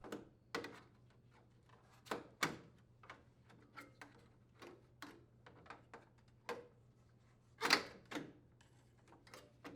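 Putty knife prying plastic door trim off a GE microwave door: a run of irregular clicks and snaps, with the loudest pair about eight seconds in.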